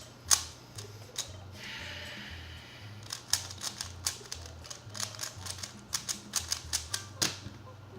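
Plastic 3x3 speed cube being turned fast with finger flicks: a rapid, irregular run of sharp clicks and clacks as the layers snap round.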